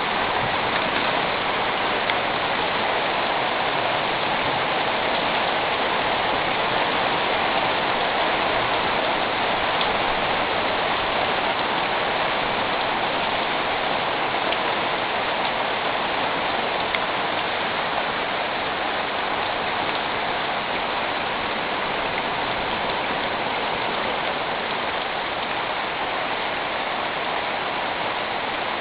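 Heavy rain drumming steadily on a metal roof.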